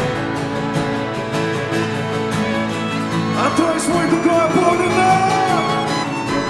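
Live acoustic guitar and string quartet playing sustained chords together. About halfway through, a higher, gliding melody line comes in over them.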